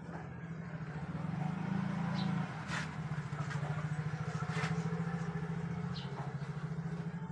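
Motorcycle engine idling, with a steady, even rapid pulse.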